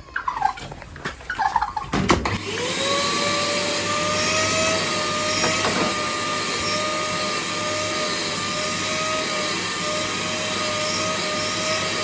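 A few knocks and handling clicks, then about two seconds in a vacuum cleaner motor switches on. It spins up with a brief rising whine and then runs steadily with a loud suction hiss.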